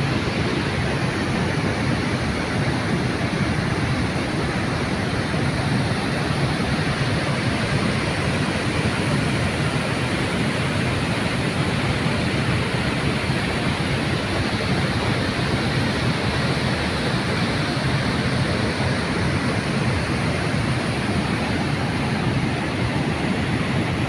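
Water pouring over a long concrete weir and churning in the river below it: a loud, steady rush of falling water that does not let up.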